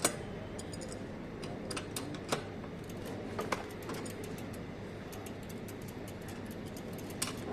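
Scattered light metallic clicks and clinks of a bicycle chain being handled and fitted, over a steady background hiss, with the sharpest clicks at the very start and near the end.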